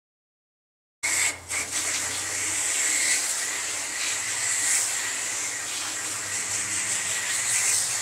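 Garden hose spray wand spraying water from inside an outdoor air-conditioner condenser out through its coil fins: a steady hiss of spray that starts abruptly about a second in, with a brief dip just after.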